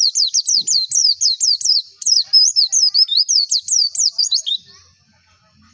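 White-eye (pleci) singing a fast run of loud, high chirping notes, each a quick downward sweep, about four a second, breaking off about four and a half seconds in.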